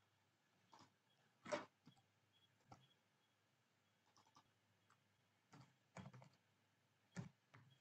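Faint computer keyboard keystrokes and mouse clicks, coming in short scattered groups with pauses between. The sharpest click falls about one and a half seconds in.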